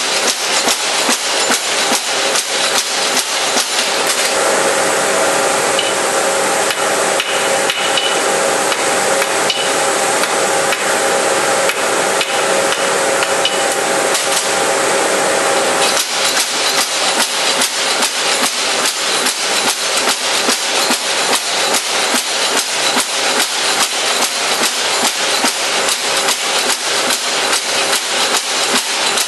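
Forging hammer striking steel carving-tool blanks in a fast, regular rhythm of blows. For about twelve seconds in the middle the blows come closer together, with a steady metallic ring under them.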